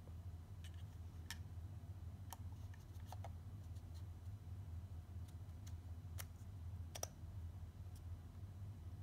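Small hard-plastic clicks and taps from a GoPro Hero 8 camera and its battery being handled and fitted by hand: about a dozen scattered clicks, the sharpest about seven seconds in, over a steady low hum.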